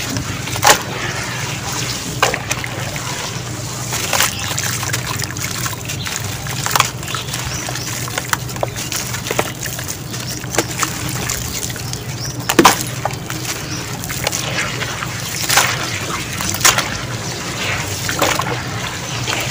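Hands squelching and sloshing through wet sand-and-cement slurry in a tub, with a few sharp splats as lumps are squeezed and broken apart.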